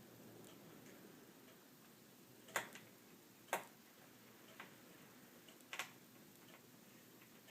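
Quiet handling of a laptop's screen assembly, with faint small ticks and three sharper clicks, about two and a half seconds in, a second later, and near six seconds: a small screwdriver and screws being worked as the replacement screen is screwed back in place.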